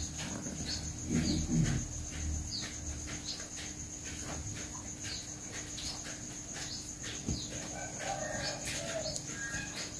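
Steady high-pitched insect trill under short bird chirps that repeat every half-second or so, with a few louder mid-pitched calls near the end.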